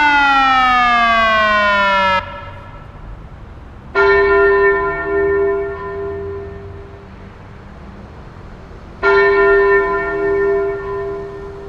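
TESLA UEAJ-600 electronic siren finishing its wailing General Warning tone. The pitch slides down and cuts off about two seconds in. Then two gong-like chime strikes, about five seconds apart, each ringing and slowly fading: the attention chime that comes before the siren's spoken message.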